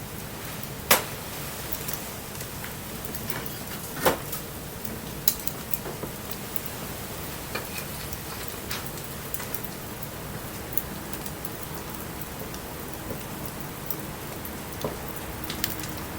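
Wood bonfire burning in light rain: the steady hiss of rain falling, with sharp pops and crackles from the burning wood, the loudest about a second in and about four seconds in.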